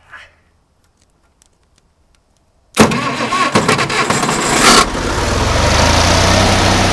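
The Oliver 770 industrial tractor's diesel engine is cranked and restarted. After a few faint clicks, the starter kicks in suddenly about three seconds in. The engine fires within about two seconds and settles into a steady idle.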